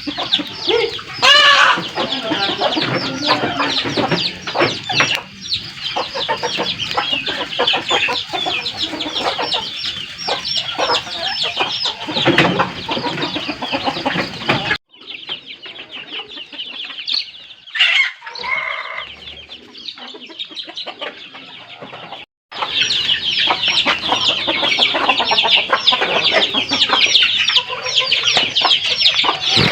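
Many birds calling over one another in a dense, continuous chatter of short clucks and chirps, like a flock of poultry. It drops suddenly about halfway through, with only scattered calls for several seconds, then comes back at full strength just as suddenly.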